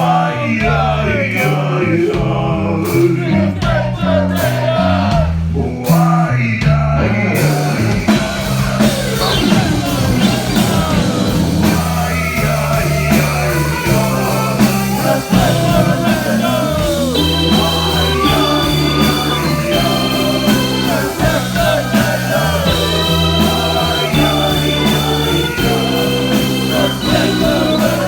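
Live rock band playing an instrumental stretch of a song, led by bass and electric guitar. About seven seconds in the full band comes in and the sound fills out.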